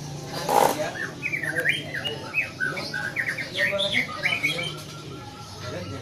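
Lovebirds chirping rapidly: many short, shrill chirps that sweep up and down in pitch, with a loud short burst of noise about half a second in and a low steady hum underneath.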